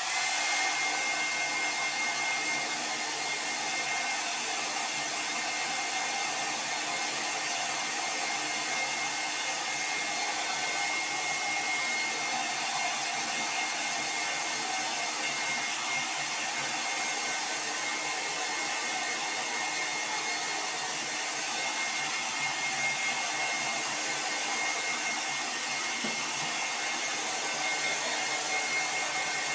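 Handheld hair dryer running steadily with a faint high whine, blowing warm air over a French bulldog's damp coat to dry it after a bath.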